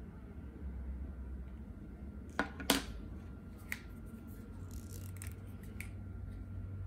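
Posca paint markers being handled on a wooden table: a few short, sharp clicks and taps, the loudest a little under three seconds in.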